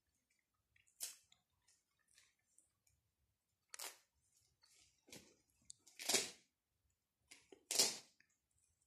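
Felt doll clothes on a fabric quiet book being pulled off and pressed back on: a handful of short scratchy rasps with quiet between, the loudest two in the second half.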